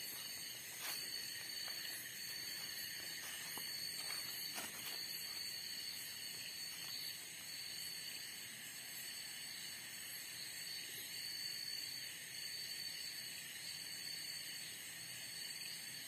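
Night insect chorus: a steady high-pitched trilling of several insects at once. A few rustles of steps through grass and undergrowth come in the first few seconds.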